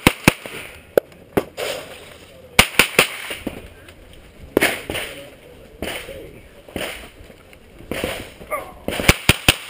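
Rifle shots fired singly and in quick pairs, about a dozen spread unevenly, with a fast string of three near the end.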